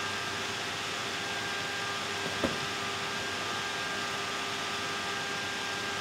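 Steady background hiss with a faint steady hum, and a single light click about two and a half seconds in.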